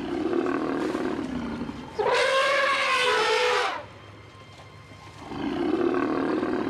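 African bush elephants calling: a lower call first, then a loud trumpeting call about two seconds in that lasts under two seconds, with its pitch arching up and down, then another lower call near the end.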